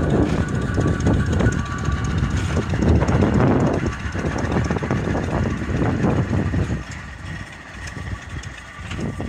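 A train of narrow-gauge goods wagons rolling past on the rails: a steady rumble with the clatter of wheels over rail joints, dropping away about seven seconds in and picking up again at the very end.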